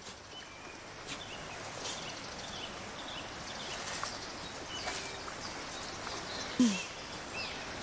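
Forest ambience: a steady outdoor hiss with scattered short bird chirps and a few faint knocks, and one brief falling cry about six and a half seconds in.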